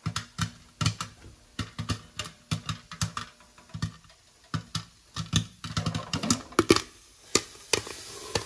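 Popcorn kernels popping in hot olive oil inside a covered pot with a glass lid: sharp, irregular pops a few times a second. This is the last stage of popping, just before the batch is done.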